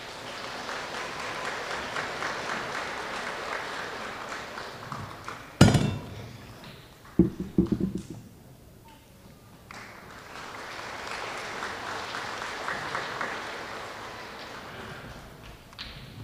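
Audience applauding in two stretches, with a lull in between. A single loud thump cuts in about five and a half seconds in, followed by a few short voice sounds.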